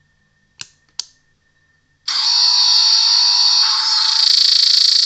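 Two short clicks, then about two seconds in the new-series Dalek gun sound effect plays loud from a small amplified speaker: a long, steady electronic blast of hissing noise with high tones through it.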